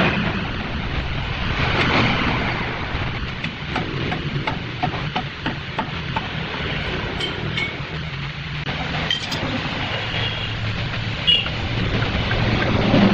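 Short knocks and bright metallic clinks as a large square wooden blank is handled and fixed on a big wood lathe, over a steady low machine hum.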